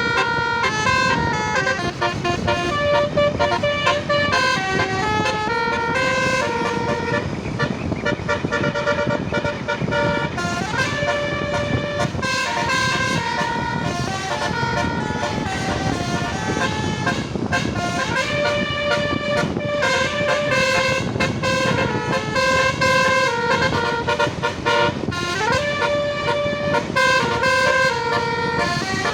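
Basuri telolet bus horns playing a continuous multi-tone melody, their notes stepping up and down with a few sliding notes, over the rumble of the bus.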